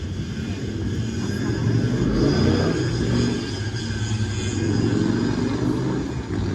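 Heavy vehicle running with a low rumble that swells about two seconds in and then holds, with a faint high whine above it.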